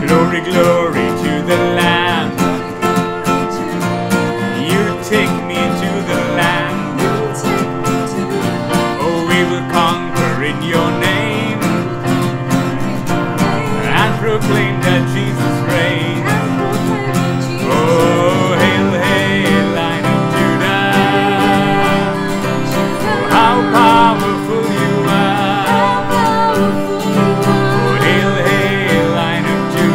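Worship song played on a strummed acoustic guitar and an electronic keyboard, with a woman and a man singing.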